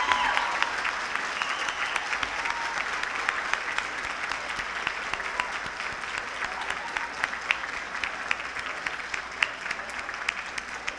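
A large audience applauding, many hands clapping together and slowly dying down.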